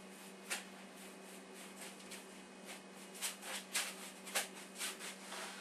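Paintbrush working acrylic paint in short, irregular swishing strokes, over a steady low hum.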